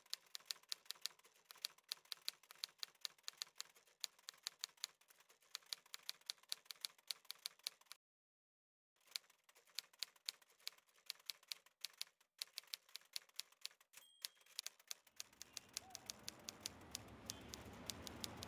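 Typewriter keystroke sound effect: quick, irregular clicks, several a second, with a pause of about a second midway. A low rumble rises over the last few seconds.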